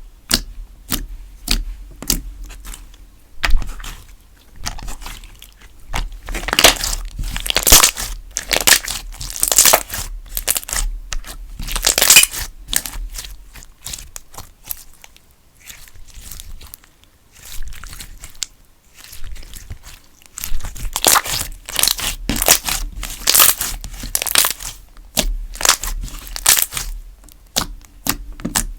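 Purple galaxy slime being squished and stretched by hand, with many sharp sticky clicks and pops and swells of crackling. It goes quieter for a few seconds in the middle.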